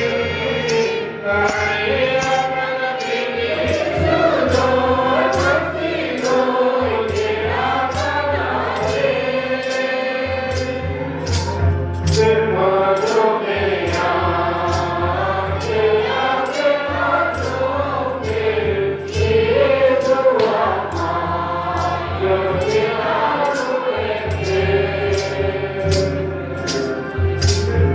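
A choir and congregation singing a Christian hymn together, with a steady percussion beat keeping time about twice a second.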